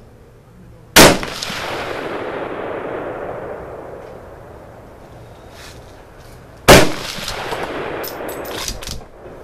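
Two rifle shots from a Ruger American bolt-action rifle in .308 Winchester, about a second in and nearly six seconds later, each followed by a long echo that rolls away over a few seconds. A quick run of sharp clicks comes near the end.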